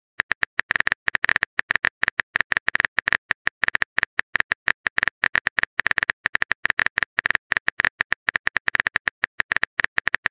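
Rapid, irregular keyboard-typing click sound effect, about ten short clicks a second, as a text message is typed out on a phone-style chat screen.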